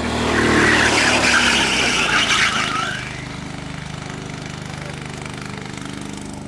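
Go-kart engine passing close by at speed, loud for the first three seconds, then fading to a steady drone as the kart moves off around the track.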